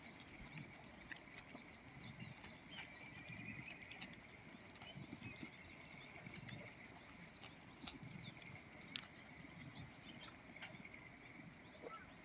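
Faint outdoor ambience: small birds chirping at intervals over a steady thin high drone, with a few soft clicks and low rustles.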